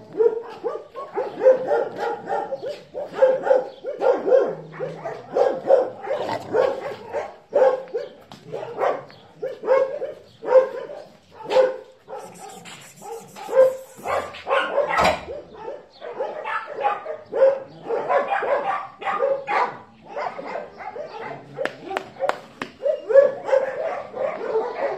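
Dogs barking repeatedly, short barks coming about once or twice a second.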